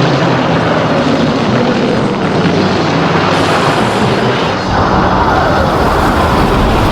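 Loud, dense rumbling roar of monster-movie battle sound effects, deepening in the bass about five seconds in.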